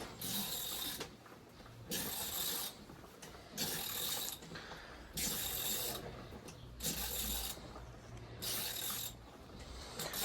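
Hand ratchet wrench clicking in six even strokes of under a second each, roughly every second and a half, as bolts are worked loose.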